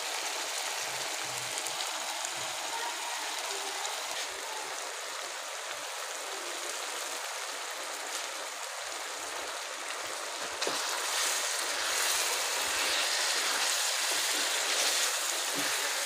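Goat-liver masala sizzling in an aluminium pan on a gas stove: a steady frying hiss that grows a little louder about ten seconds in.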